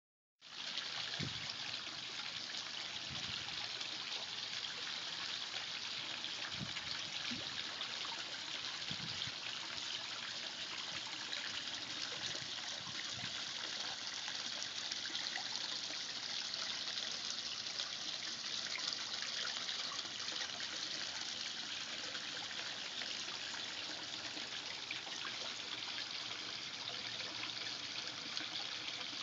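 Small garden-pond waterfall splashing steadily over stones into a koi pond, a constant trickling rush. A few soft low thumps in the first dozen seconds.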